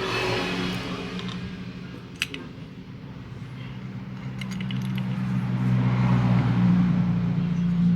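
Small metal carburettor parts clicking and clinking as they are handled, a couple of times early on and a few more about halfway. Under them a nearby vehicle engine runs steadily and grows louder over several seconds toward the end.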